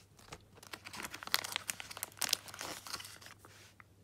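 Clear plastic packaging of a pack of firework shot tubes crinkling as a hand opens it and pulls out a tube: a busy run of sharp crackles that dies away just before the end.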